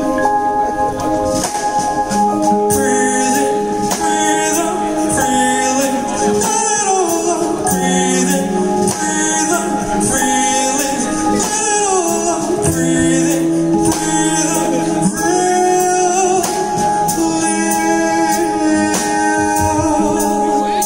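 A progressive rock band playing live: a male singer sings long, gliding lines over held keyboard chords and light, regular percussion.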